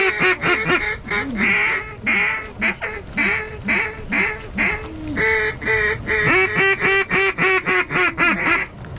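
Loud mallard-style quacking: a long series of short, nasal quacks that crowds into a fast run about six seconds in.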